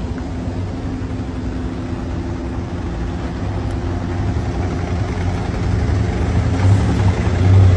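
Engines of a convoy of military buses and trucks running as they roll past one after another, a low steady engine sound that grows louder near the end as a truck draws close.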